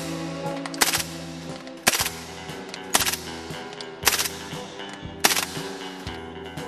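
Suppressed 9mm HK MP5 submachine gun fired in short bursts about once a second, six in all, over background music.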